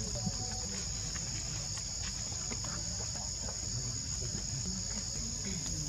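Steady high-pitched insect chorus, with faint scattered clicks and a low rumble underneath.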